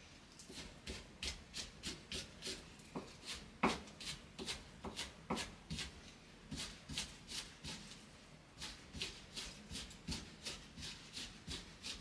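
Kitchen knife slicing green onion on a wooden cutting board: a steady run of crisp chops, about three a second, with brief pauses twice.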